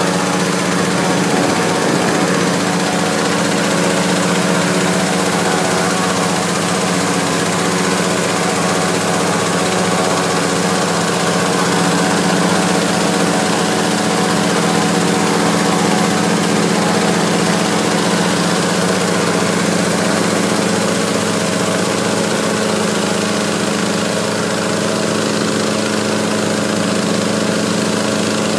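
Small gasoline engine of a hot-air balloon inflator fan running steadily, blowing cold air into the envelope during cold inflation: an even engine hum over a constant rush of air.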